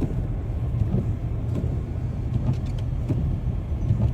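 Car driving: a steady low rumble, with a few faint clicks.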